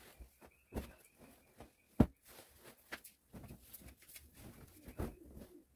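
Bedsheets being pulled off and spread over a mattress: quiet rustling of cloth with scattered soft knocks, and one sharp knock about two seconds in.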